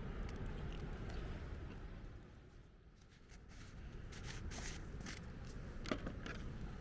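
Wind rumbling on the microphone, easing for a moment about halfway. A few light clicks and scrapes come in the second half, the sharpest one just before the end.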